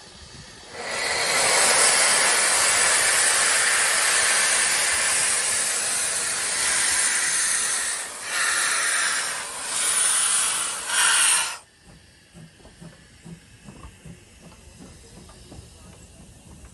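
HG 3/4 No. 1 steam locomotive blowing steam from its open cylinder drain cocks as it moves off: a loud, steady hiss that starts about a second in and comes in three gusts before cutting off abruptly about two-thirds of the way through. Afterwards there is only faint clicking of the train rolling.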